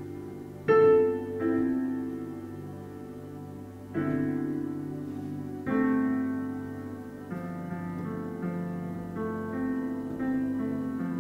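Slow, gentle solo piano music: chords struck every second or two and left to ring and fade.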